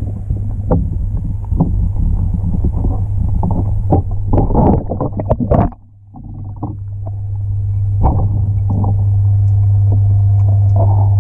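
Muffled underwater sound in a pool: water movement with many short knocks and a steady low hum through the first half. The sound drops away sharply about halfway, then a steady low hum swells back up and holds loud.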